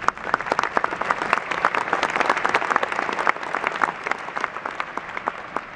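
Audience applauding, with sharp individual claps standing out from the general clapping; it begins to die away near the end.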